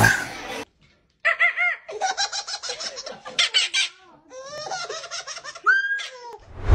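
A baby laughing hard in quick, rhythmic bursts of high-pitched belly laughter. A loud rushing sound comes in at the very end.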